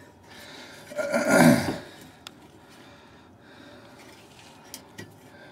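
A short, falling grunt from the mechanic about a second in, then a couple of faint clicks as the exhaust gasket is seated at the pipe flange by hand.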